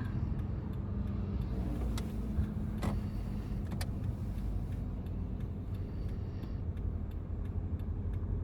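Car cabin noise: the steady low rumble of the engine and tyres heard from inside a moving car, with three sharp ticks about a second apart a couple of seconds in.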